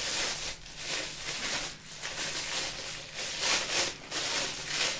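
Clear plastic wrapping around a wristwatch crinkling in a string of irregular rustles as the watch is handled and slid off its cushion.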